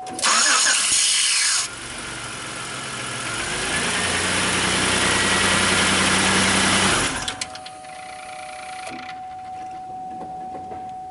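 2003 Chevy Impala's 3.4 L (3400) V6 cranked by the starter and catching, running for about five seconds, then stopping about seven seconds in. It is run to put oil pressure on a failed oil pressure switch that is leaking oil.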